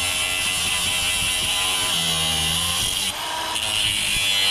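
A motor running steadily with a buzzing drone, dipping briefly about three seconds in.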